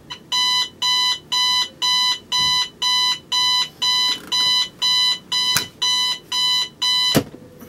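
Digital bedside alarm clock going off: a steady run of loud, shrill electronic beeps, about two a second. A sharp click comes late in the run, then a louder knock near the end, and the beeping stops right after it.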